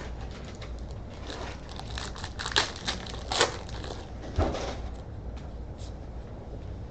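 A trading-card pack wrapper being crinkled and torn open, with a cluster of sharp crinkles a second or two in.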